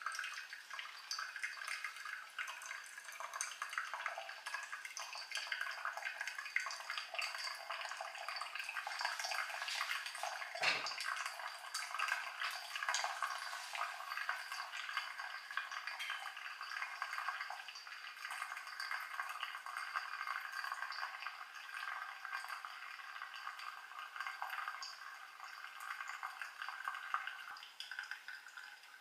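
Brewed coffee running in a thin stream from a Hario V60 pour-over dripper into a glass coffee server: a steady fine trickle and patter of liquid. A single soft low thump about ten seconds in.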